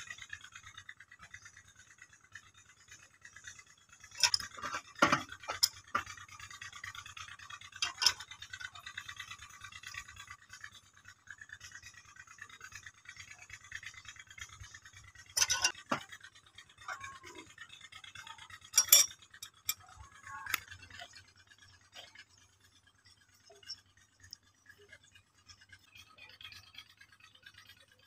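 A metal tool scraping inside the eye of a stone millstone of a flour mill, broken by several sharp clinks and knocks of metal on stone, the loudest about four, eight, fifteen and nineteen seconds in. The scraping fades in the last few seconds.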